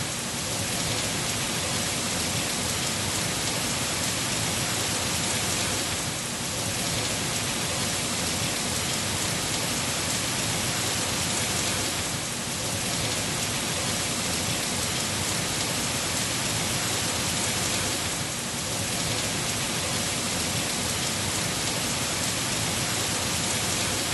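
Heavy rain pouring steadily onto leafy trees, a dense, even hiss that eases slightly about every six seconds.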